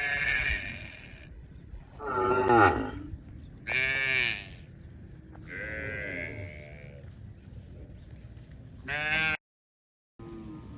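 Livestock calling, about five drawn-out calls in turn, the loudest about two seconds in and a short one near the end. The sound drops out completely for under a second near the end.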